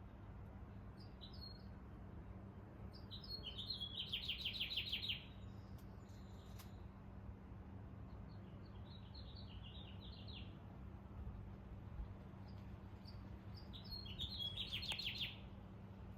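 A small songbird singing three short phrases of high notes, two of them ending in a fast, loud trill, over a steady low hum.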